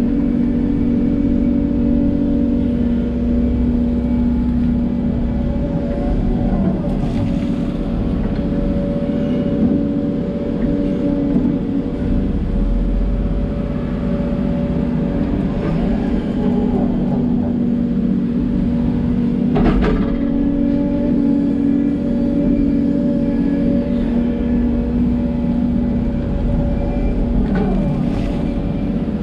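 Hidromek 140LC hydraulic excavator working, its diesel engine running steadily under load. Hydraulic whines rise and fall as the boom and bucket move, with a few sharp knocks, the loudest about twenty seconds in.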